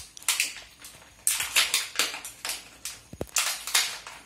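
Crinkling and tearing of a small paper-and-plastic packet being worked open by hand, a quick irregular run of crackles, with one short low knock about three seconds in.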